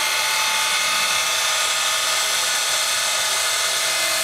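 Steam locomotive venting steam in a loud, steady hiss.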